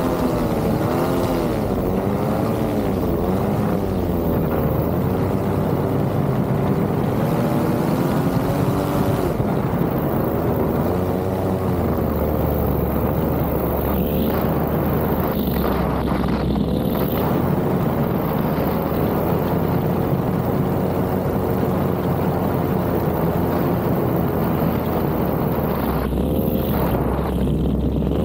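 Paramotor engine and propeller running in flight. The pitch wavers up and down for the first few seconds, then holds steadier.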